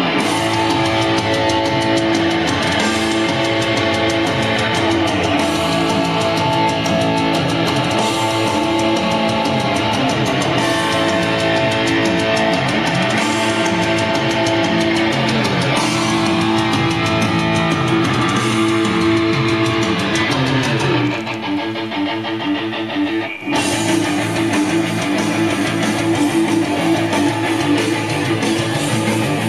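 Guitar-led rock music playing back from an MCS 683-3595 cassette deck. It starts abruptly, drops back for about two seconds three quarters of the way through, then comes straight back in at full level.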